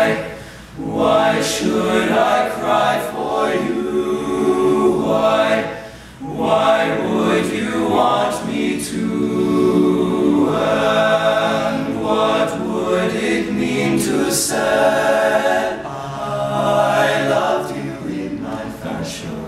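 Male a cappella group singing in close harmony, several voices together, with brief breaks in the sound about a second in and again about six seconds in.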